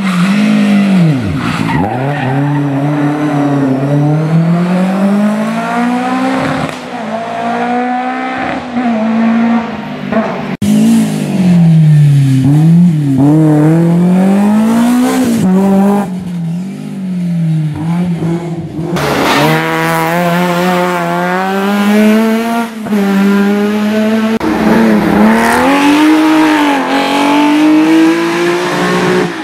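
Historic rally cars driven hard on a stage, their engines revving up and falling back with gear changes and lifts for corners. A new car comes in after each of two cuts, about ten and nineteen seconds in.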